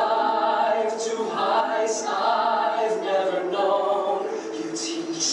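A choir singing a slow song, held notes changing about every half second to a second.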